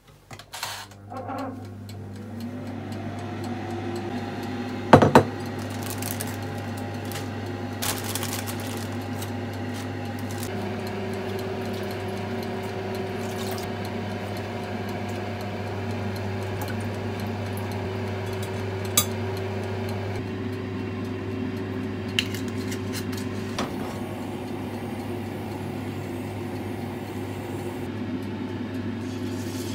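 Microwave oven running: a steady low hum, with a whirr that rises to speed over the first few seconds and then holds. A few sharp knocks near five and eight seconds in.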